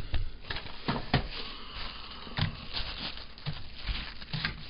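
Small objects being handled and set down on a table: irregular light clicks, taps and soft knocks with some rustling in between.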